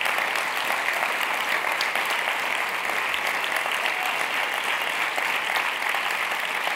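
Audience applauding: steady clapping from many hands, keeping up at an even level.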